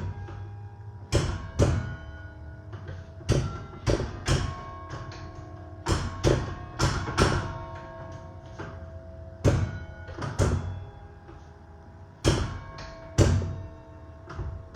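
Church tower bells played as a carol melody, one bell struck at a time in an uneven, tune-like rhythm. Each note starts with a sharp knock and rings on, so the tones overlap.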